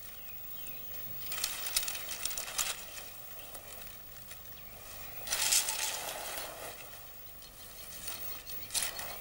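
Dry leaf litter rustling and crackling in three short bursts, about a second in, midway and near the end, as a king cobra works its jaws and body over a cobra it is swallowing.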